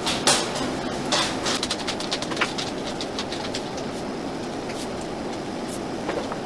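Glass canning jars being lowered with a metal jar lifter into hot water in an enamel water-bath canner: a run of clinks and ticks, thickest in the first three seconds, over a steady hiss from the steaming canner.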